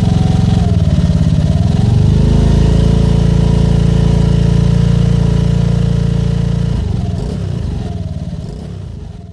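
Motorcycle engine running through a cheap Chinese aftermarket silencer. Its pitch dips and climbs to a new steady note in the first two seconds and holds there; a little before seven seconds the pitch changes and the sound fades away.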